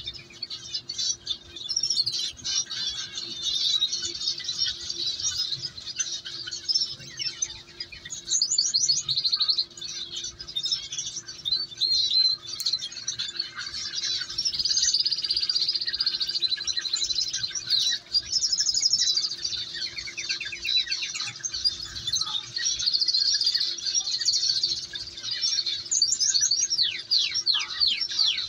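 Canary nestlings begging while being hand-fed: continuous high-pitched cheeping with rapid trills throughout.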